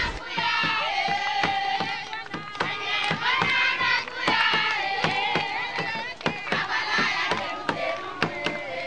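A crowd of women and children singing together, with hand clapping a few times a second.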